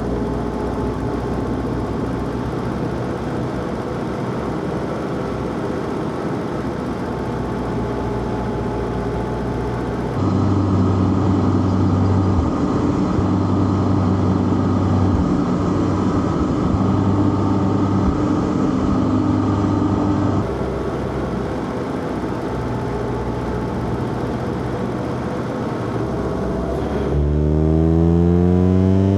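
Inline-four car engine driving hard: steady running, then louder under heavier throttle from about a third of the way in to about two-thirds in, and near the end the revs climb steadily under acceleration.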